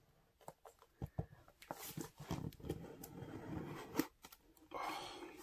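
A tight-fitting cardboard smartphone box being worked open by hand: scattered soft taps, clicks and scrapes of cardboard. A short sliding rush comes near the end as the lid comes loose.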